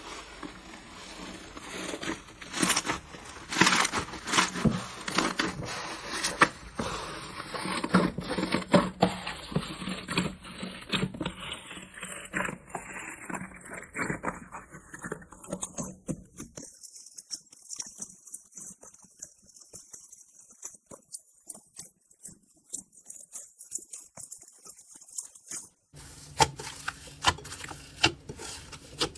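Slime being squeezed and pressed by hand, a dense run of small crackles, clicks and pops. About three seconds before the end it cuts to another clip, where the clicking goes on over a faint low hum.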